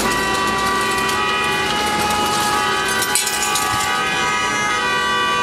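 Several car horns held down at once, a continuous blare of overlapping steady tones at different pitches, one of them dropping out about four seconds in. It is impatient honking at a toll lane held up by a slow payment.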